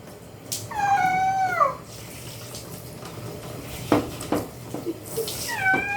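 Domestic cat meowing in a bathtub: a drawn-out meow that falls in pitch about a second in, and another near the end. Between them come a few brief splashes of water.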